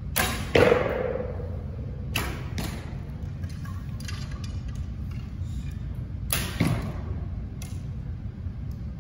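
Bows being shot, three times: each shot is the sharp snap of the bowstring releasing, followed less than half a second later by the arrow hitting the target. The first hit is the loudest and rings briefly.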